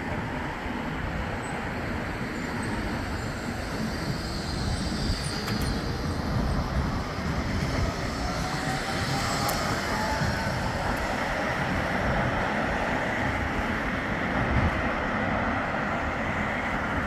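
Bombardier Flexity 2 electric tram pulling away from a stop and passing close by: a steady rolling rumble of wheels on rail, with a faint rising electric whine about halfway through as it picks up speed.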